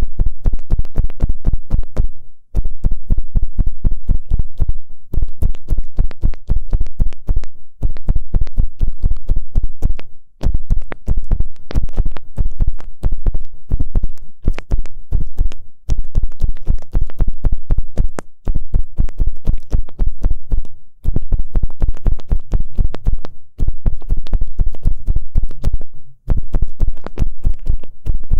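Ear pick tip scratching and rubbing against a microphone's ear in rapid scratchy strokes, heavy and close. The strokes come in bouts of two to three seconds with short breaks between them.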